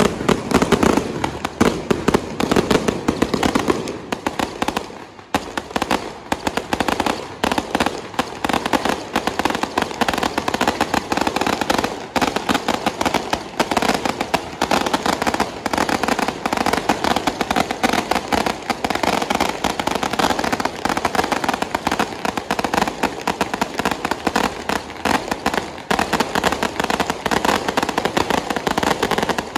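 Dense, continuous crackling and popping of fireworks and firecrackers, with aerial shells bursting overhead. There is a short lull about five seconds in, then the crackle resumes.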